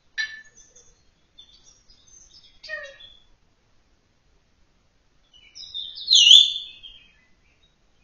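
Parrot chirping and whistling in short, scattered bursts. The loudest is a whistle falling in pitch about six seconds in, with a sharp click at the same moment.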